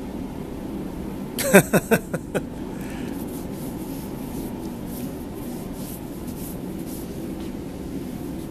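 Hands pushing and scraping sand in a sandbox: soft, scratchy rubbing over a steady low hum. About a second and a half in, a quick run of five or six loud pulses with sliding pitch.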